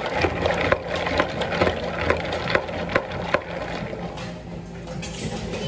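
Light clicks and rattles of ice and plastic, about two a second, from a tall plastic cup of iced ade as its dome lid is worked on and pressed down. The clicks die away after about three and a half seconds. A steady low hum sits beneath.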